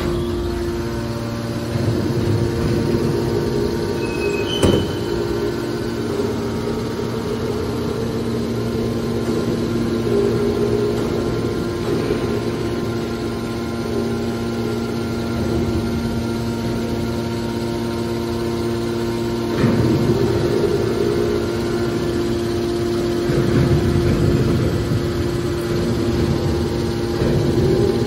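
Hydraulic power unit of a scrap metal baler running: an electric motor driving a hydraulic pump with a steady hum. There is one sharp knock about five seconds in, and the noise swells louder twice in the second half.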